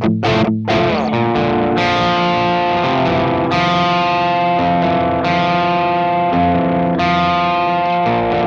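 Overdriven electric guitar played through a T-Rex Karma Boost pedal. Two short chord stabs, then chords struck and left to ring, with a new chord every second or two.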